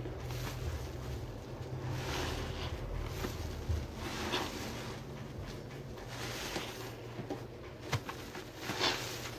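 Soapy sponge squeezed by hand: soft wet squelches about every two seconds over a low steady hum, with a couple of short sharp clicks near the end.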